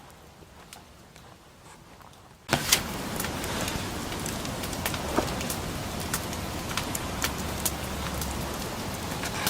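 Food sizzling in a hot pan on the camp stove or fire: after a quiet start it begins suddenly about two and a half seconds in, a steady hiss with many small pops.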